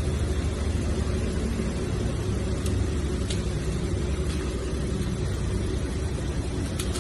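Car engine idling with a steady low rumble, with a few faint clicks.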